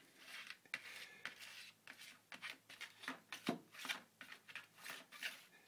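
A musical Christmas greeting card being batted about on a vinyl floor by a cat: irregular papery scrapes, rustles and light taps, the card's tune not playing.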